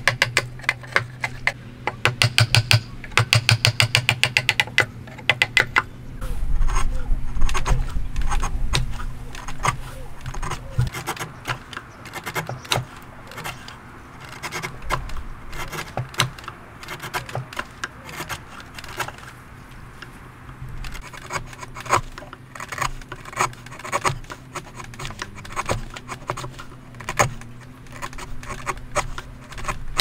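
A wooden mallet tapping a steel chisel into hardwood in quick, even strikes, about five a second, for the first five seconds. After that, the chisel is pushed by hand to pare the wood, with irregular light cutting clicks and scrapes.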